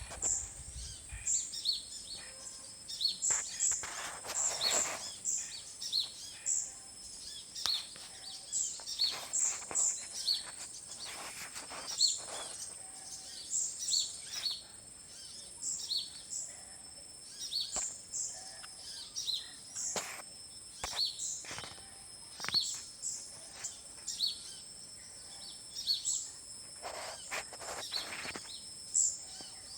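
Wild birds gathered in a forest tree, calling with many short, high chirps that repeat through the whole stretch, over a steady high-pitched whine.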